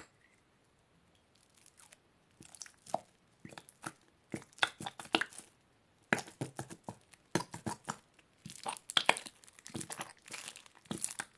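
Plastic glue bottle being squeezed hard, giving irregular crackling, sputtering clicks as the glue is pressed out. The clicks begin about a second and a half in and come more thickly toward the end.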